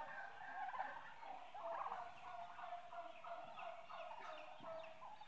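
Giblet broth poured from a saucepan through a fine mesh strainer into a glass bowl, trickling and splashing in a rapid run of small liquid plinks.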